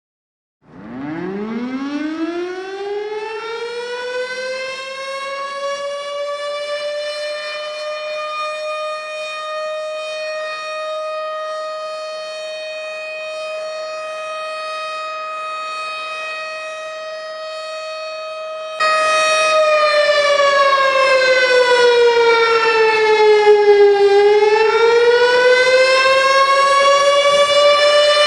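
Outdoor tornado warning siren winding up from a low pitch to a steady high tone just under a second in, and holding it. About two-thirds through it suddenly gets louder, then its pitch slowly falls and rises again in a wail.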